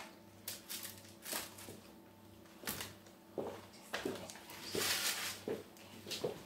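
Light knocks and clinks of bowls and dishes being picked up and moved on a kitchen counter, with a brief rustle about five seconds in.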